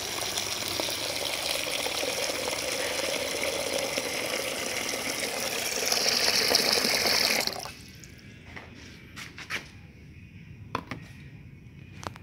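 Water running from a plastic tap into a rice-cooker pot of uncooked rice, filling the pot to rinse the rice. The stream gets louder near the end and is shut off suddenly about seven and a half seconds in. A few drips then fall into the water.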